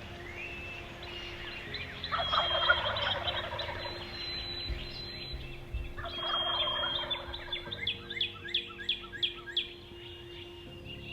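Wild turkey gobblers gobbling: two rattling bursts of gobbling, then a quick run of short, sharp calls near the end.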